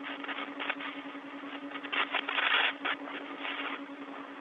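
Open space-to-ground radio channel from a spacewalk: a steady hiss with a low hum, and a louder rush of noise about two seconds in.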